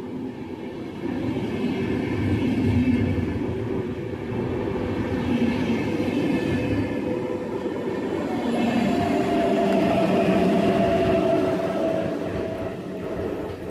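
VR InterCity double-deck passenger coaches rolling past along the platform with a steady rumble of wheels and bogies. About two-thirds through, the Sr2 electric locomotive at the rear passes, and a steady whine from it joins the rumble before the sound fades as the train moves away.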